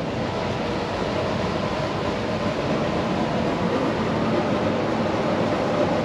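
Large Lennox commercial packaged HVAC units running: a steady, noisy rush of fan air with a faint steady hum underneath.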